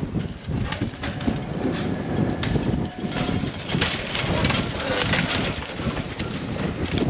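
Hurricane Idalia's storm wind buffeting the phone's microphone in a gusty, rushing rumble, with scattered light clicks and knocks around the middle.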